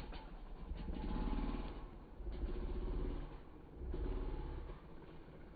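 Dirt bike engine revving up and dropping back in three swells, each about a second long, as the throttle is worked to hold a wheelie.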